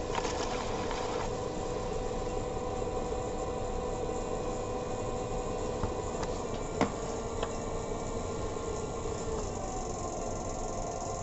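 Electric pottery wheel motor running with a steady hum, its pitch shifting slightly near the end. A tool scrapes against the spinning clay for about the first second, and a few sharp clicks sound midway.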